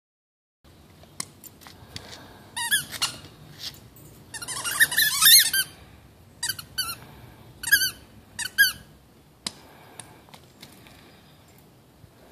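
Squeaky tennis ball squeaking in short bursts as a dog chews it in its mouth. The loudest is a quick run of squeaks near the middle, with a few scattered squeaks before and after.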